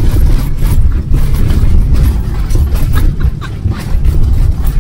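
Camper van on a rough, bumpy road, heard from inside the cabin: a loud low road rumble with the interior rattling and knocking as everything is shaken about.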